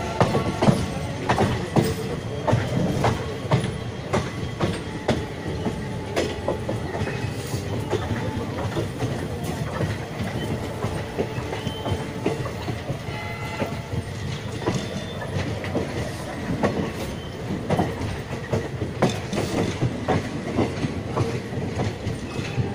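Coach wheels of the 14206 Delhi–Faizabad Express clattering over rail joints and points, heard on board, over a steady running rumble. The clicks come thick and irregular.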